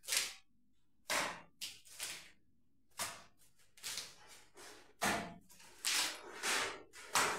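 Wet mortar, laced with plaster of Paris, being slapped and pressed with a trowel onto the underside of a brick lintel. About a dozen short, irregular splats and scrapes come with brief pauses between them.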